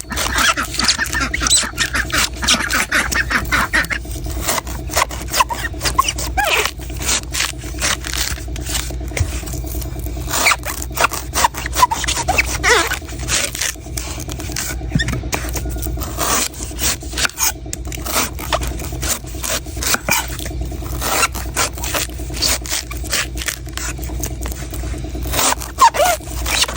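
Knife chopping and scraping a coconut: a quick, continuous run of sharp cuts and scrapes, over a steady low hum.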